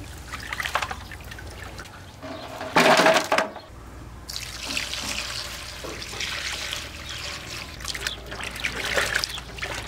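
Water trickling and splashing in small uneven spurts, with a short, loud pour or splash about three seconds in.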